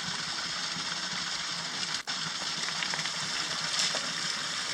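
Small stream running and rushing over stones, a steady even noise with a momentary dropout about two seconds in.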